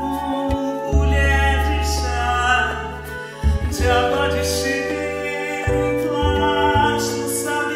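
Slow instrumental passage of a ballad: keyboards hold chords over a bass line, with the chord changing every second or two.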